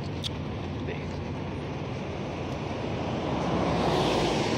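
Road traffic: a steady rumble of vehicles, with one passing car swelling louder near the end.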